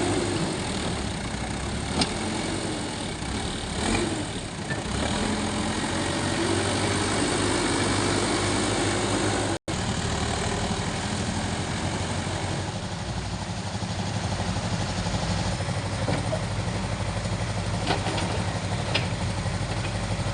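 A heavy machine's engine running steadily, with a few sharp knocks and a brief rising whine partway through, while wood is loaded. The sound cuts out for an instant near the middle.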